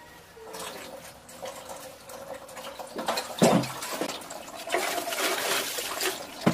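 Water poured from a dipper over a soiled cloth diaper held in a toilet bowl, splashing into the bowl as the poop is rinsed off. The splashing grows louder from about three seconds in, with a thump in the middle and another at the end.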